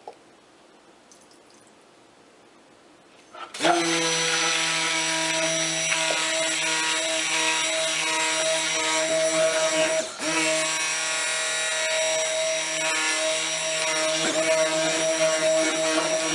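Stick blender switching on about three and a half seconds in and running steadily in a bucket of soap oils and lye solution, a whining motor hum that falters briefly about ten seconds in. Its owner thinks it sounds like the blender is on the fritz.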